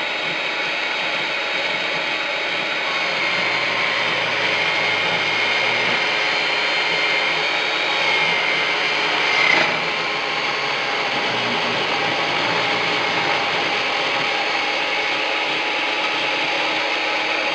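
Bosch portable table saw running, its blade ripping a wooden trim board lengthwise along a freehand bevel line, a steady sawing noise with a brief louder peak about halfway through.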